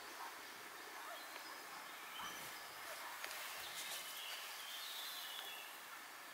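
Songbirds chirping and twittering faintly in short, scattered calls over a steady background hiss.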